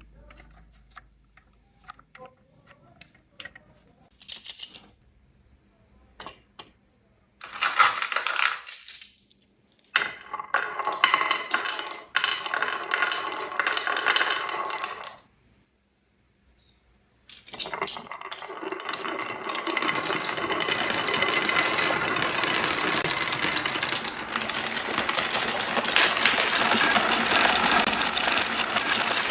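Marbles clicking and rolling down a wooden HABA marble run: first scattered clicks, then rolling rattles that stop for a moment and come back as a steady clattering roll that lasts from about two-thirds of the way in.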